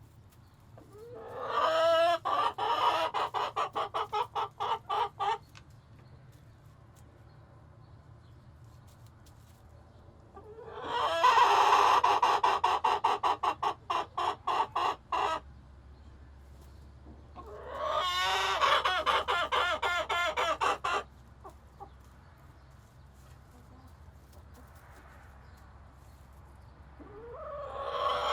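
Chickens in a coop calling loudly: four long calls, each starting on a rising note and breaking into rapid pulses, with quieter pauses of several seconds between them.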